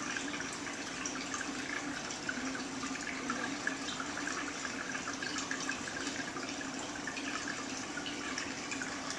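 Aquarium water trickling and splashing steadily from the tank's filter, with a steady low hum and a fine crackle of bubbles.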